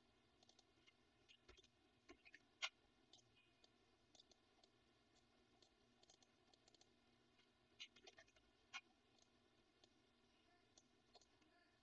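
Near silence: room tone with a few faint single clicks from a computer mouse or keyboard, spaced several seconds apart.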